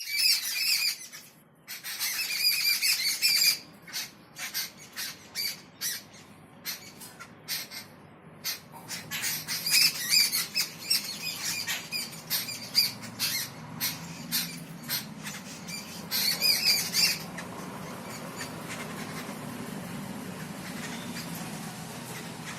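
Birds squawking and chattering in loud high-pitched bursts, with many short sharp calls in between. From about two-thirds of the way through the calls stop and a steady low hum takes over.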